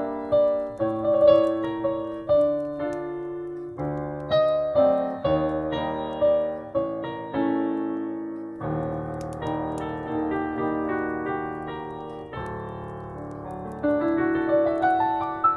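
Solo piano playing a melody with chords, each note struck and left to ring, and a rising run of notes near the end. Faint fireplace crackles sit underneath.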